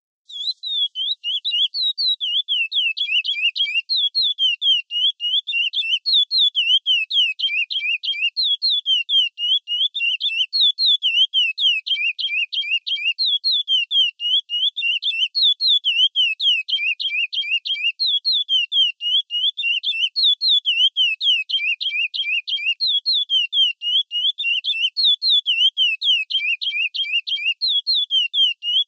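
Curió (chestnut-bellied seed finch) singing the classic 'Praia' song, starting about a third of a second in. A fast, unbroken string of whistled notes sweeps up and down in repeating phrases.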